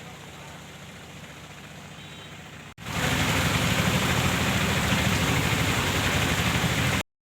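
A vehicle's engine running steady under a rushing noise, faint at first, then much louder after an abrupt cut about three seconds in; the sound cuts off suddenly about a second before the end.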